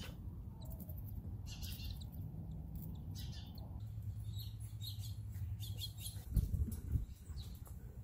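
Cockatiels chirping: short, high chirps scattered through, with two dull thumps about six and a half seconds in.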